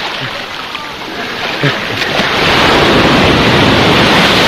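Sea waves washing onto the shore, the surf swelling louder about halfway through.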